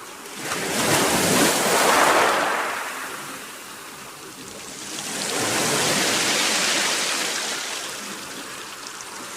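Sea of Okhotsk surf: waves washing in on the shore, swelling and ebbing twice.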